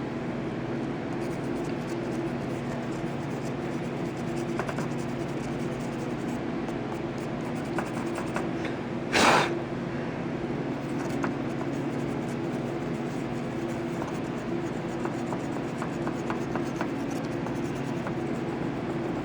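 Glass-fibre sanding pen scratching at rust spots in car paint, faint small rubbing clicks over a steady low hum. A brief loud burst of noise about nine seconds in.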